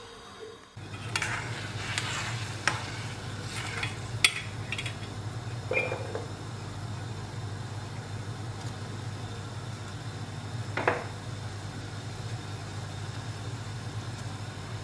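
Sugar syrup in a stainless steel pot coming to a boil on the stove, with a steady low rumble. A metal ladle clinks sharply against the pot several times in the first few seconds, and there is a single knock about eleven seconds in.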